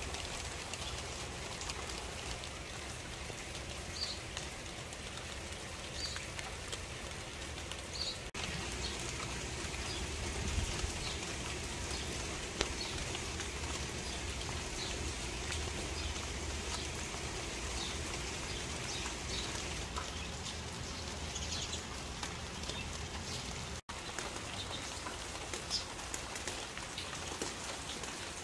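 Steady rain falling on tree leaves and a wet tiled floor, an even rushing hiss with a few short high sounds mixed in.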